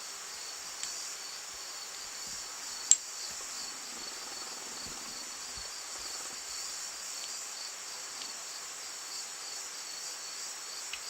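Steady high chirring of crickets in the background, with one sharp click about three seconds in and a few faint clicks from the lock being handled.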